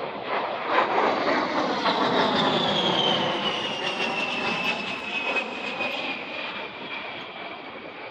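A-10 Thunderbolt II's twin TF34 turbofan engines in a flyby. The jet noise swells over the first second or two and then fades, and a high whine falls slowly in pitch as the aircraft passes.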